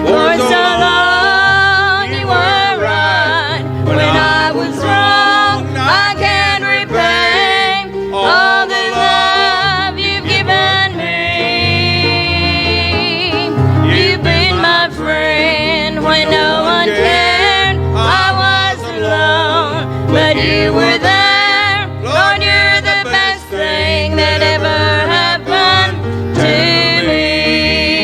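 Gospel song sung with vibrato over instrumental accompaniment with a steady bass line.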